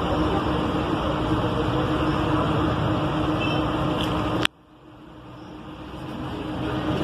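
Steady outdoor background noise with a faint low hum. About four and a half seconds in, a sharp click cuts it to near silence, and the sound then slowly swells back over the last two seconds, like a recording dropping out and recovering.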